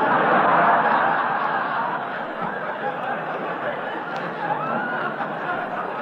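Studio audience laughing, loudest right at the start and slowly dying down, heard through the narrow, thin sound of a 1942 radio broadcast recording.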